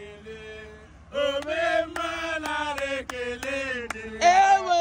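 Men's voices chanting together in a sing-song, holding drawn-out notes, louder from about a second in, with short sharp beats behind them.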